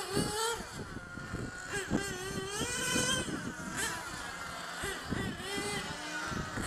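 Small two-stroke nitro engines of 1/8-scale GT RC cars running on a track. Their high-pitched notes rise and fall over and over as the cars accelerate down the straights and back off for the corners.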